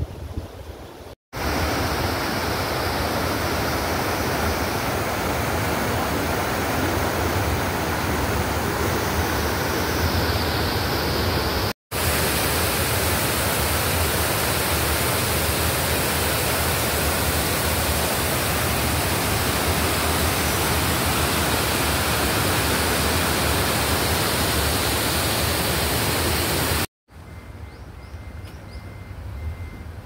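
Water rushing steadily over a concrete weir, loud white water. It starts about a second in, cuts out for a moment partway through, and stops a few seconds before the end.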